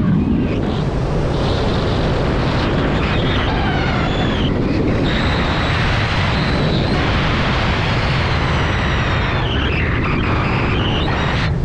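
Airflow buffeting a hang glider's wing-mounted camera microphone in flight, a steady loud rush of wind. Faint thin whistling tones come and go in the middle.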